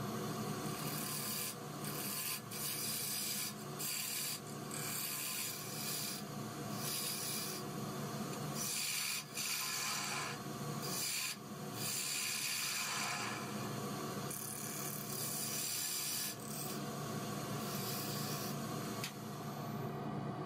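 Wood lathe running with a steady hum while a hand-held turning tool cuts the spinning face of a small wooden lid. The cutting is a hiss that comes in passes, broken by short pauses when the tool lifts off.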